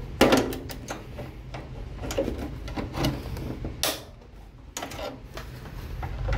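Needle-nose pliers clicking and scraping against the plastic frame of a microwave oven door as it is pried apart to free the door spring. There are irregular sharp clicks and knocks, the loudest just after the start.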